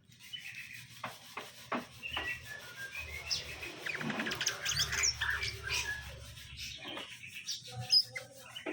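Green leafbirds (cucak ijo) giving short chirps and squawks, mixed with repeated scraping and rubbing scratches that come thickest about three to five seconds in.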